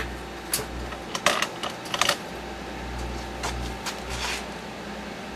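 Microwave oven running with a low hum while a Sony headset radio inside it gives off irregular sharp crackles and snaps, the sound of its metal and electronics arcing in the microwaves.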